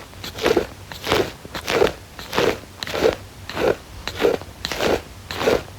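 A light-up ear pick scraping and rubbing directly on an iPhone microphone in slow, regular strokes, about one every half second or so, giving a close, crackly ASMR ear-cleaning scratch.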